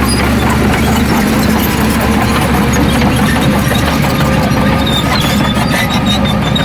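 Heavy diesel earthmoving machinery running steadily under load, with scattered high metallic squeaks and clicks over the engine.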